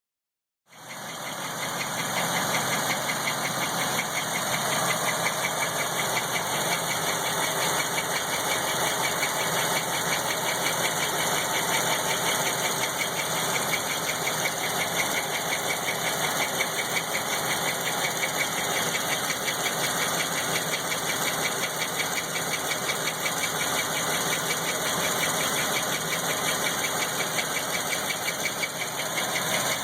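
GM LT1 V8 engine running at a steady idle with a fast, even ticking or knocking noise whose cause the owner cannot identify.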